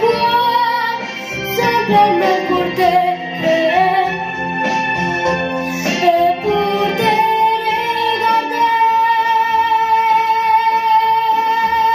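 A boy singing a French ballad into a microphone over instrumental accompaniment, holding one long note from about seven seconds in.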